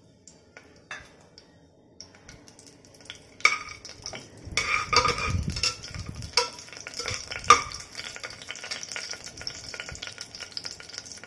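Whole spices and cashews sizzling as they fry in hot ghee and coconut oil in an aluminium pressure cooker. From about three and a half seconds in, a perforated metal skimmer scrapes and clinks against the pot as they are stirred. The first few seconds hold only a faint sizzle and a few small clicks.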